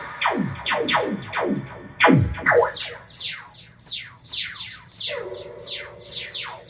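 Rapid electronic zaps, each a quick downward sweep in pitch, following one another at about three to four a second in an irregular stream. A low steady tone comes in about five seconds in.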